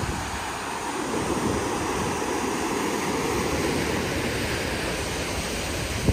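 Ocean surf breaking and washing over a rocky shore below a cliff, a steady rushing wash, with wind buffeting the microphone.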